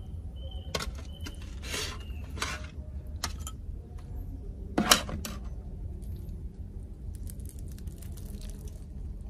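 Crispy deep-fried crocodile head being torn apart by hand, its crust crackling and snapping in scattered clicks. About five seconds in comes a single sharp clack of metal on the metal serving tray.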